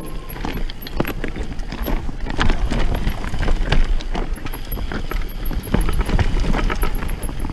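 Mountain bike rattling down a rocky dirt singletrack: an irregular clatter of knocks as the tyres, suspension and drivetrain hit stones, over a constant low rumble of ground and wind noise on the bike-mounted camera.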